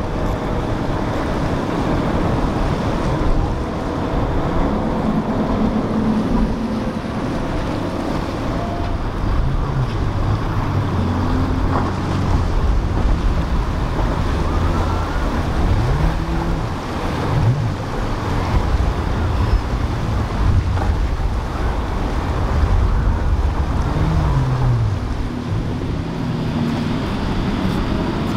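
Motor yacht engines running at speed through choppy inlet water, their drone briefly rising and falling in pitch several times, over the wash of breaking waves and wind on the microphone.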